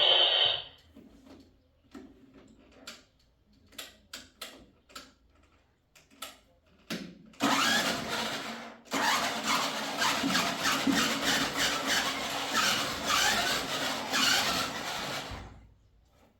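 A few scattered knocks and taps, then about eight seconds of rhythmic scraping strokes, like a hand tool working wood or stone.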